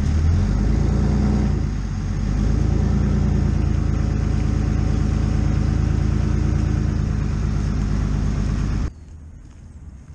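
Vehicle engine running steadily under load. It dips briefly about two seconds in, picks up again, and cuts off abruptly near the end.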